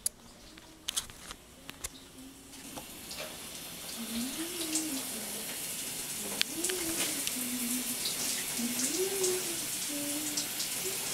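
Shower running behind a curtain, a steady hiss of water that grows louder a few seconds in, with a person inside singing a wavering tune over it. A few light clicks come near the start.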